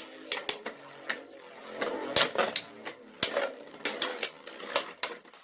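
Two 3D-printed Beyblade spinning tops clashing in a plastic stadium: irregular sharp clacks as they hit each other and the walls, over a faint whir of the spinning tops.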